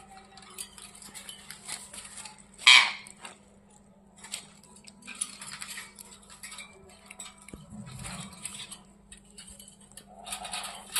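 Pet ringneck parakeets at their cage and food bowl: light clinking and scratching, with one short, loud squawk nearly three seconds in.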